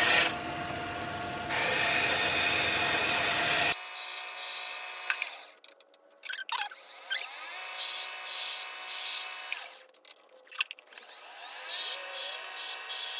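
Lathe turning an acrylic crochet-hook blank, with the tool cutting on and off. The sound thins out a few seconds in and drops to near silence twice for about a second.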